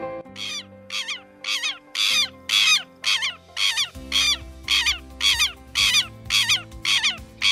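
Southern lapwing (tero) calling, a loud harsh call repeated evenly about twice a second, over soft background music.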